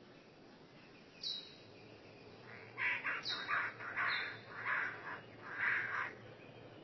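Bird calls: a couple of short, high whistles that slide downward, then a run of about six harsh, raspy calls.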